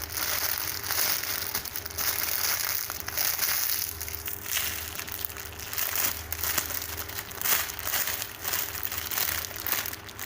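Continuous crinkling and rustling with many small crackles, from a squishy toy in its plastic packaging being handled and squeezed.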